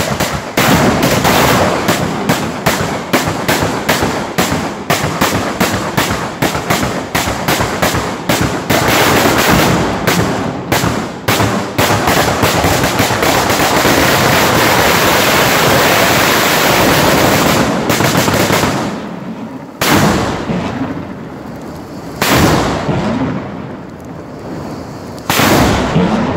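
Antique Ligurian mortaletti, a chain of small black-powder ground mortars, firing in rapid succession: sharp bangs several a second that run together into one continuous rattle of blasts. After the run dies away about two thirds of the way through, three single loud bangs follow a couple of seconds apart.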